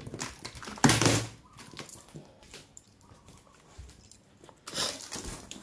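Clear packing tape being pulled off a cardboard box, with crinkling and scraping of tape and cardboard; two louder rips, about a second in and near the end.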